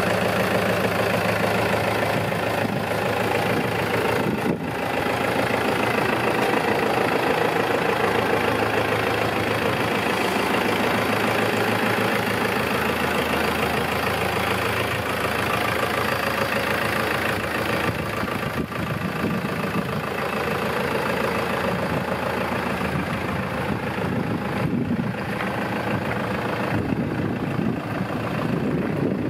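New Holland TD5010 tractor's four-cylinder diesel engine idling steadily.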